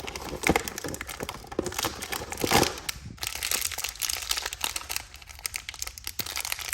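Toy packaging crinkling and tearing in the hands as a small blind-pack figure is unwrapped: a dense run of crackles with a couple of louder snaps.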